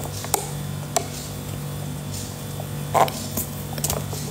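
Steady low electrical hum with a few faint clicks and soft handling noises, one of them about three seconds in.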